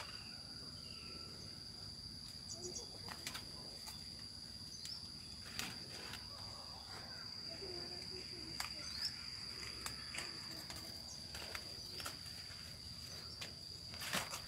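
Steady, high-pitched insect drone, with a handful of short sharp clicks and faint rustling as bok choy is picked by hand.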